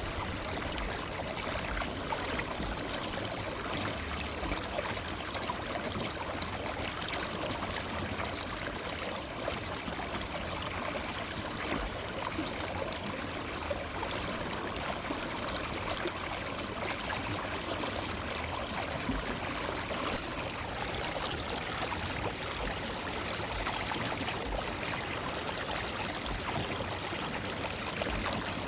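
Forest river flowing over rocks: a steady rush of running water with a fine babbling and trickling texture.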